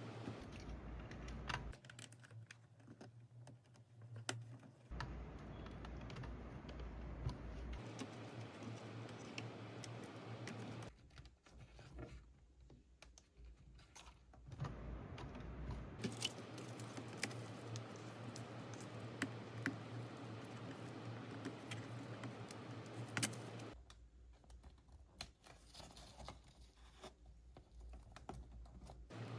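Scattered light clicks and taps of small parts and hand tools being handled during reassembly of an electronic device, over a low electrical hum that changes abruptly several times.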